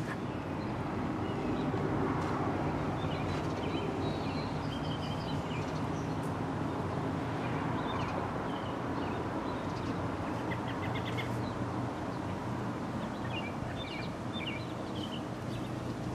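Steady drone of distant propeller-plane engines overhead, the skywriting aircraft, with small birds chirping now and then.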